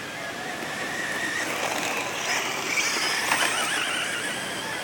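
Motor and gear whine of a Kyosho Optima Mid radio-controlled 4WD buggy driving across grass. The pitch rises and falls with the throttle, and it is loudest about three seconds in.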